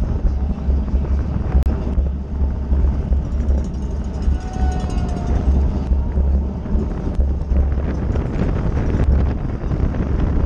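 Wind buffeting the microphone of a camera mounted on a racing bicycle at race speed: a loud, steady, low rumble with rushing noise over it.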